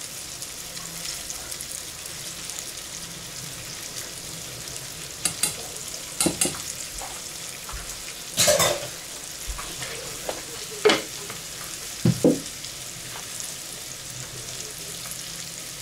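Pangasius fillets frying in a pan, sizzling steadily. A handful of short, sharp knocks and clinks sound at scattered moments through the middle.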